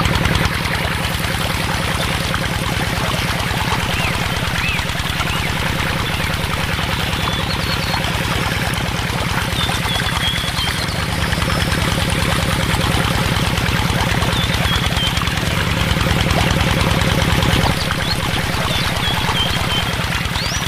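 Small electric motor of a miniature water pump humming steadily while a thin stream of water pours from a tube and splashes into a plastic basin of water.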